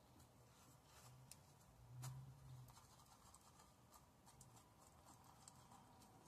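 Near silence, with faint ticks and light scraping of a wooden stir stick in a plastic cup of glitter resin, and a faint low hum that swells briefly about two seconds in.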